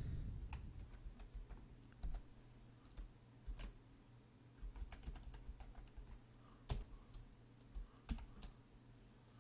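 Faint, irregular keystrokes on a computer keyboard, over a low steady hum.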